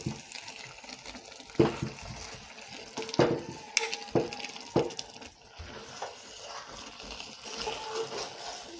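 Metal spoon stirring cooked rice in a metal pot, clinking and scraping against the pot's side about half a dozen times over a steady hiss.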